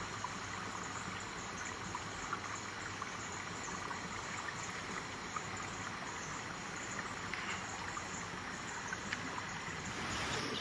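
Steady, even rush of a flowing stream.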